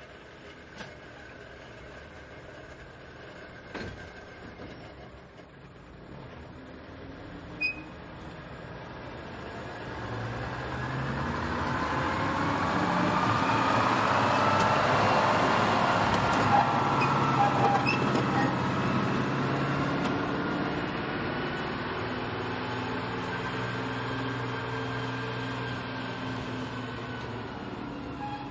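Diesel engine of SNCV railcar AR 133, a unit salvaged from a US Sherman tank, running as the railcar approaches and passes close by. It grows louder to a peak about halfway through, with a higher wavering whine over the engine note and a few sharp clicks in the first several seconds.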